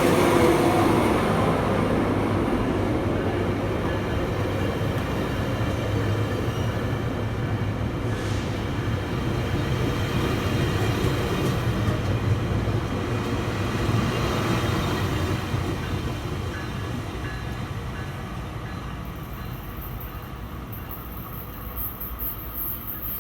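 Metrolink diesel commuter train running on the rails, a steady rumble and engine hum that fades gradually from about fifteen seconds in, with a faint high hiss near the end.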